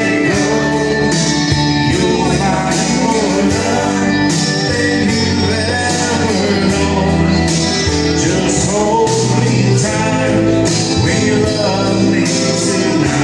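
A man singing a country song into a microphone over amplified backing music with guitar.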